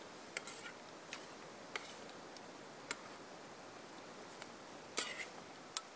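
Spoon clicking and scraping against a small metal camp pot while eating: several irregular light ticks, the loudest group about five seconds in, over a faint steady hiss.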